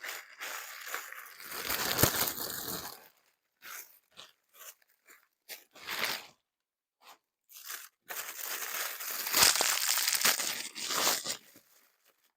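A small package being opened by hand: its wrapping torn and crinkled in two long bouts, with a few short rustles between them and a sharp snap about two seconds in and again about nine seconds in.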